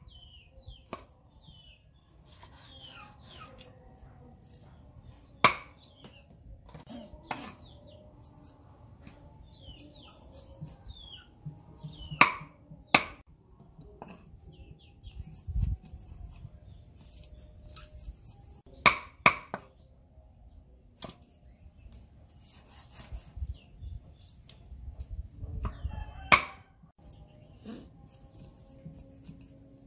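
Meat cleaver chopping small fish on a thick round wooden chopping block: a handful of sharp chops, several in quick pairs, with long pauses between. Chickens cluck faintly in the background.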